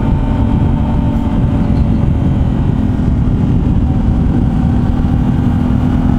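Yamaha Ténéré 700's 689 cc parallel-twin engine running steadily at road speed, under a heavy low rush of wind on the helmet-mounted microphone.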